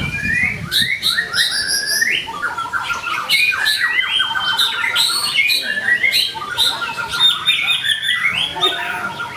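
White-rumped shama (murai batu) singing without a break: a fast, varied string of whistled notes, slurs and quick trills, broken by short harsh chattering notes.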